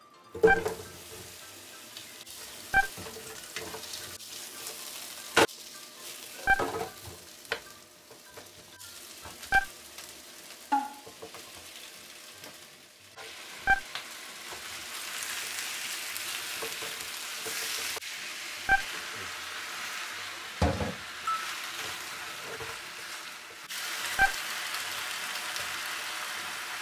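Onions and chicken sizzling in hot oil in a frying pan while they are stirred with a wooden spatula. The sizzle grows louder about halfway through, when the chicken goes in, and sharp clacks come every few seconds.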